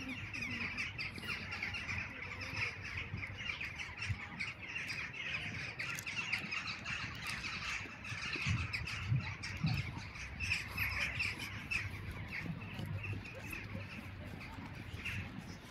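Continuous dense chatter of a large flock of birds calling, many overlapping short calls, with footsteps crunching in snow underneath.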